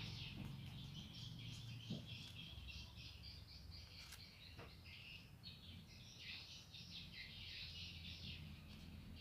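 Faint, busy chirping of small birds. There is a low steady hum, and two soft clicks come about two seconds and about four and a half seconds in.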